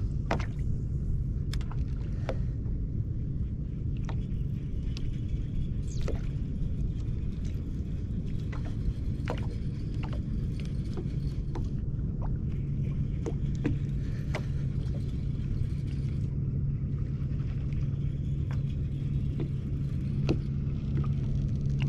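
Bass boat's bow-mounted electric trolling motor running with a steady low hum, under a low rumble, with scattered light clicks and taps.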